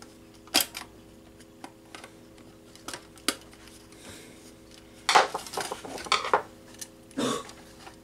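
Screwdriver and stranded wire clicking and scraping against the terminal screws of a fire alarm's metal mounting bracket as the wire is worked back under a screw. The clicks come in scattered single strikes, with a denser run of clicks and scrapes a little after halfway. A faint steady hum sits underneath.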